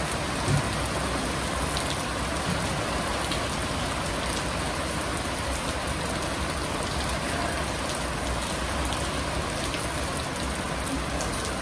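Steady rain falling, an even hiss throughout, with a single low thump about half a second in.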